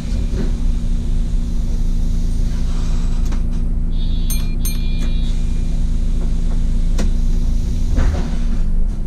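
City bus engine idling at a stop, heard from the driver's cab as a steady low hum. About four seconds in comes a short run of high electronic beeps, and a sharp click about seven seconds in.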